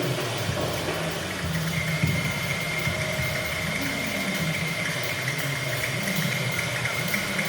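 Experimental improvised sound-art music from turntables and drums: a low, wavering rumble, joined about two seconds in by a steady high tone.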